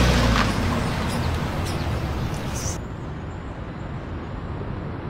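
A car driving away, its engine fading within the first second into steady street noise with a few faint clicks. About three seconds in, this gives way to a quieter, even outdoor hum.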